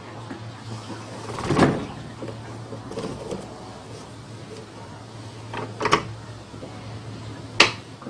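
Steady low electrical hum from an Electrolux top-load washer's spin actuator energised on test, with three clunks and clicks from the drive mechanism and basket; the hum cuts off near the end. The actuator is locking the ratchet on the pulley so the whole basket turns for the spin cycle.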